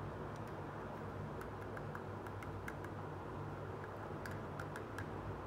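Light, irregular clicks and taps of small plastic toy pieces being handled and picked up, over a steady low background hum.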